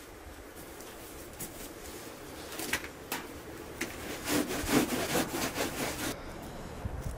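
A hand rubs and brushes across a burlap-covered tandoor bread cushion in a run of rough, rasping strokes. The strokes start a couple of seconds in, are loudest in the middle, and stop about a second before the end.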